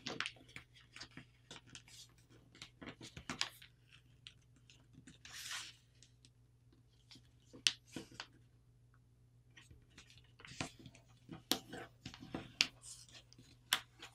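A sheet of paper being folded and creased by hand: faint scattered crackles and rustles, with a longer rustle about five and a half seconds in.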